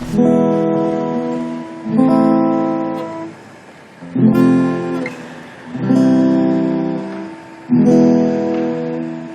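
Guitar chords strummed one at a time, about every two seconds, five in all, each left to ring out and fade before the next.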